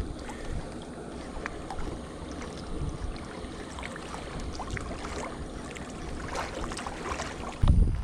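Wind buffeting the microphone as a steady low rumble, with a stronger gust near the end.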